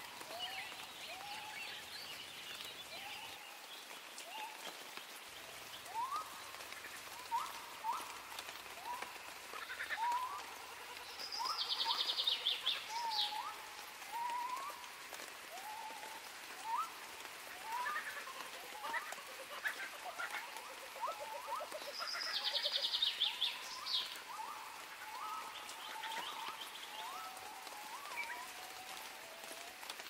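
Outdoor nature ambience of animal calls: many short rising chirps, a few every second, and twice a fast high trill about ten seconds apart.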